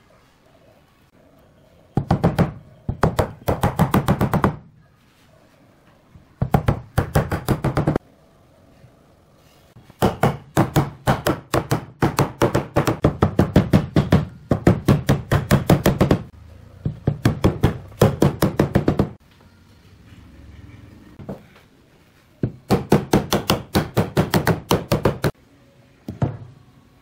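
Rapid runs of sharp knocks on wood, about eight a second, in bursts of one to three seconds with short pauses between.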